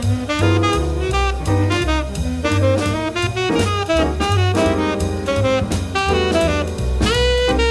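Jazz quartet recording of tenor saxophone, piano, bass and drums playing together, with a rising run near the end.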